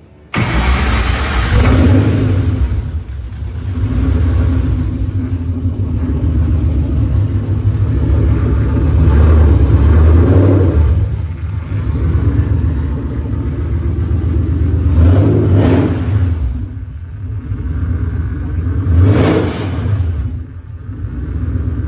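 A Gen 1 Coyote 5.0 V8 (an F-150 truck engine with long-tube headers) firing on its first start after the swap and catching at once. It then runs, with about five blips of the throttle worked by hand at the throttle body.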